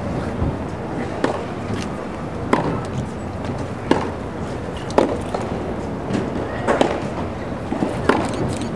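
Tennis balls hit back and forth with rackets: a sharp pock about every second and a half, six strokes in all, with fainter bounces on the hard court between them and a steady murmur of outdoor ambience underneath.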